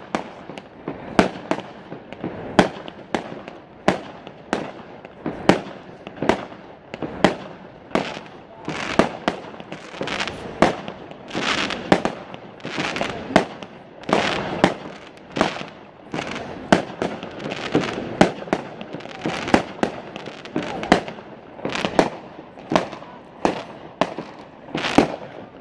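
Fireworks display: aerial shells bursting in quick succession, one or two sharp bangs a second, with denser crackling through the middle.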